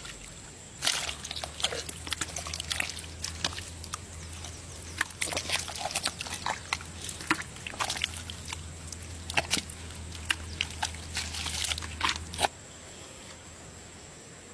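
Wet sloshing and squelching in mud and water, a dense run of small splashes and clicks over a low hum, starting about a second in and stopping abruptly near the end.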